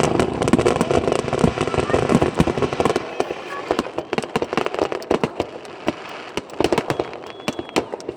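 Fireworks going off in a rapid barrage of sharp cracks and pops, densest in the first three seconds and then thinning to separate bangs, with a short faint whistle near the end.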